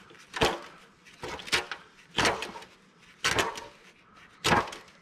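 Wrench clanking against the drain bolt of an ATV's shaft-drive final-drive case as the bolt is worked loose: about six short metallic clatters, spaced unevenly.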